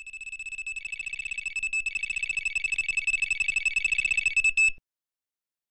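Electronic carp-fishing bite alarm sounding a continuous stream of rapid, high-pitched beeps. It signals a fish running off with the line, a 'full run'. It grows louder and cuts off suddenly near the end.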